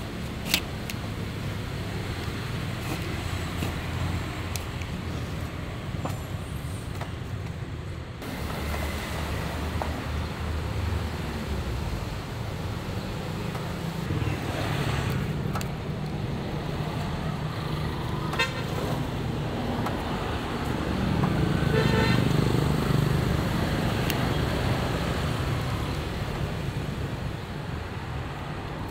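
Road traffic rumbling steadily, swelling louder about two-thirds of the way through, with a couple of short horn toots.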